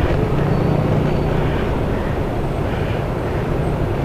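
Motor vehicle engines running amid steady road traffic noise, with a low hum that swells and fades.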